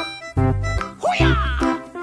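Upbeat, playful background music with a steady bass beat and a gliding cartoon-like sound effect about a second in.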